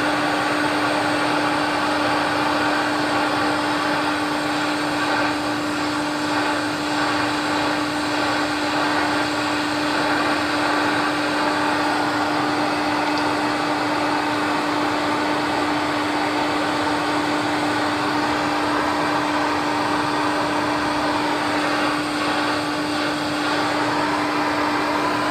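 A torch running steadily, heating a battery cable end until the solder in its cup melts into a puddle. Under the even hiss there is a constant hum.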